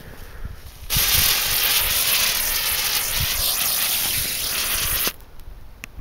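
Keller Feuerkreisel ground spinner firework catching about a second in and spinning with a loud, even hiss of spraying sparks. The hiss cuts off suddenly after about four seconds as the spinner burns out.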